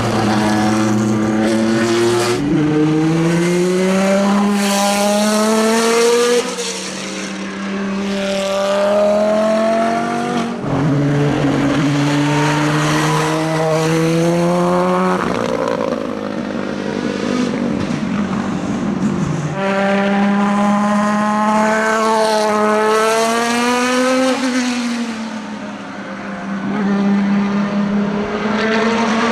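Endurance racing cars (LMP prototypes and GT cars) at full throttle, engine pitch climbing for several seconds and then dropping at each upshift. Several separate clips follow one another, each starting abruptly.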